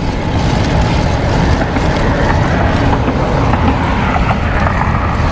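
Strong wind gusts buffeting an action camera's microphone on a moving road bike, a loud steady rumble mixed with tyre noise on the road, as the rider pedals hard into a headwind.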